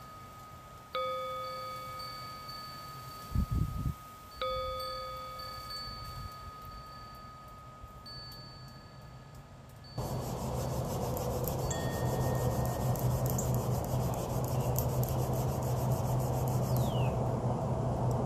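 A metal chime struck twice, about a second in and again about four and a half seconds in, each stroke ringing out slowly with a bright cluster of overtones. There are a couple of low thumps between the strokes. About ten seconds in, the chime gives way to steady outdoor background noise with a low hum.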